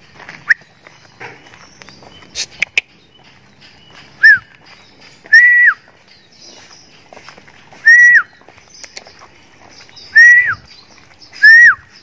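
Five short whistled calls, each a clear held note that drops off at the end, spaced a second or two apart and the loudest thing heard. They are used to lure a tame Javan myna back. A few faint clicks come in the first three seconds.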